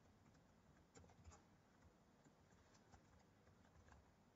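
Near silence with a few faint, scattered computer keyboard keystrokes.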